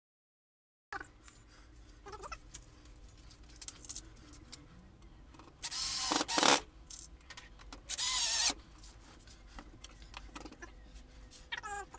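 Cordless drill run in two short bursts, the first about a second long and the second shorter, a second and a half apart, drilling into a wooden board, with light knocks of handling around them.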